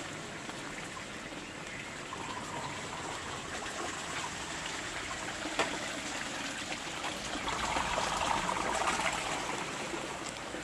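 Water trickling steadily, growing a little louder for a couple of seconds past the middle, with a single sharp click about halfway through.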